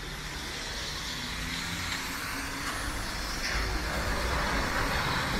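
City street traffic on a wet road: cars and a city bus going by, growing a little louder after the middle.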